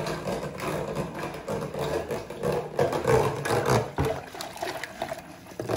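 A milk and dry-fruit drink being poured through a strainer, a continuous uneven liquid sound.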